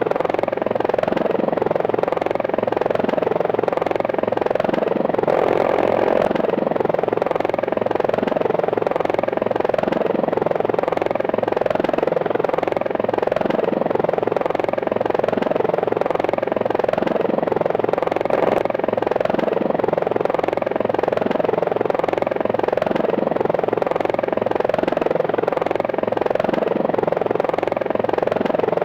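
Helicopter flight sound effect: a steady, even rotor chop with engine noise and no gunfire.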